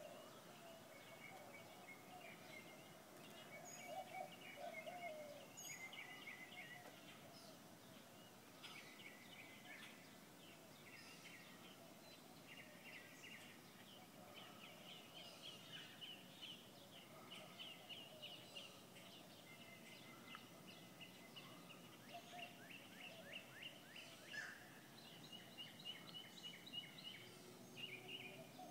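Faint morning chorus of wild birds: many songbirds chirping and trilling throughout. Low, wavering cooing of mourning doves comes in the first few seconds and again near the end.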